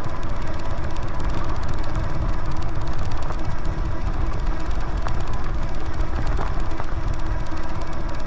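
Philodo Jumbo dual-motor e-bike climbing a steep grade under power with front and rear hub motors both driving: steady riding noise, mostly a deep wind rumble on the microphone, with a faint steady whine through it.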